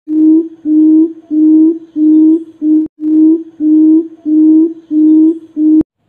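Barred buttonquail call played back as a lure: a steady run of low hooting notes, about two a second, each on one held pitch. A sharp click sounds about halfway through and another near the end.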